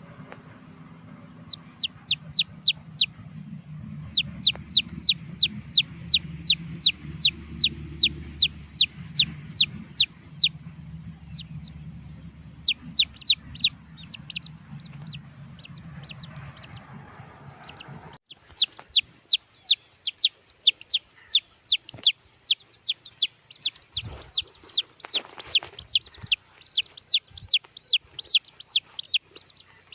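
Red junglefowl chicks peeping: runs of short, high, quickly falling chirps, about three a second with pauses. After a sudden change about halfway through they become denser and louder at about four a second. A low hum lies underneath until that change.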